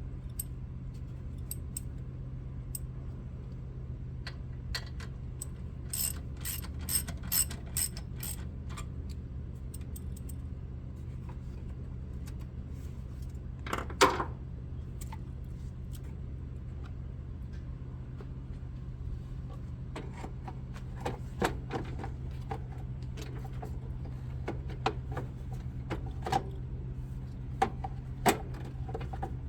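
Hand work on a 1994 Honda Accord's air filter housing: a quick run of sharp, ratchet-like clicks, one loud knock about halfway through, and scattered clicks and taps near the end, over a steady low hum.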